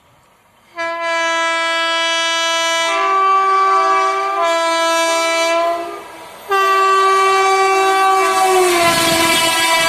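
WAP-4 electric locomotive's horn sounding in long blasts that change between two notes, with a short break around six seconds in. Near the end the horn's pitch drops as the locomotive comes past, and the rushing rumble of the train on the rails rises.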